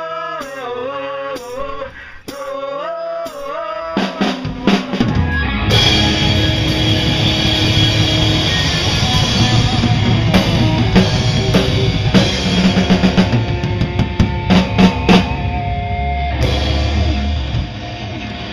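Rock band playing in rehearsal: a wavering sung line over light backing, then about four seconds in the drum kit crashes in with bass and guitar and the full band plays loud. It eases off shortly before the end.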